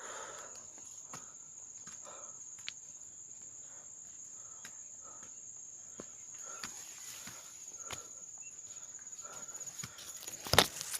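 Insects droning with one steady high-pitched tone, over footsteps at an even walking pace, with one louder knock near the end.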